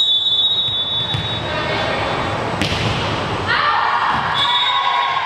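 Volleyball match in a gym: a referee's whistle blown as one steady high blast for about a second and a half at the start, a single thump of the ball about halfway through, then voices and shouts, with a second, shorter whistle blast near the end.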